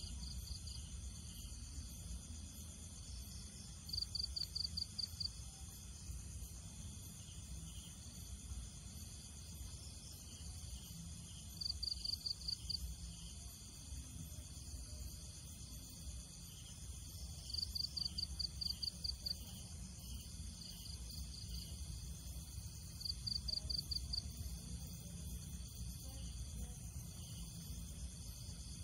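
Insect chirping in short pulsed trills of about half a dozen quick notes, repeating every few seconds, over a steady high hiss and a low rumble of outdoor ambience.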